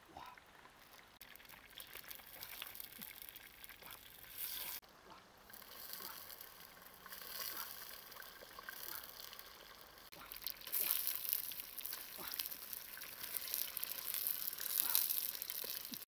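Water sloshing and dripping in a cooking pot as fish are handled and the pot is stirred, with scattered small clicks. A short louder patch about four seconds in, and busier, louder from about eleven seconds in.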